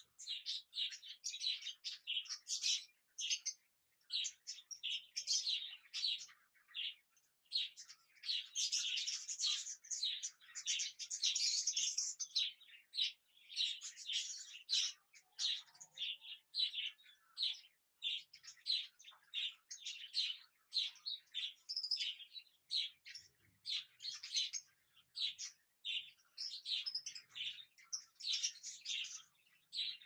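Budgerigars chirping: a dense, nearly continuous run of short, rapid high-pitched chirps and calls.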